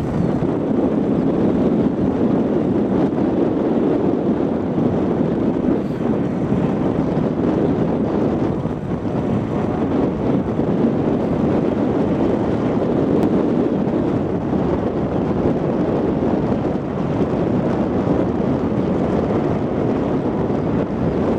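John Deere 8700i self-propelled forage harvester running steadily under load while chopping grass, together with the John Deere 7230R tractor pulling the trailer alongside: an even, unbroken machine drone.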